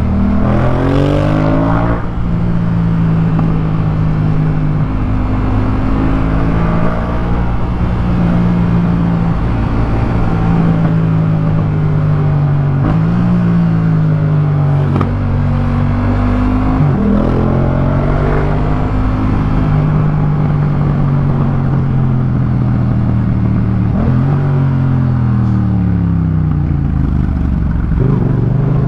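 Yamaha MT-07's parallel-twin engine through a Jeskap K4 full aftermarket exhaust, revving under way: its pitch climbs and then drops several times, as when accelerating through the gears and rolling off the throttle.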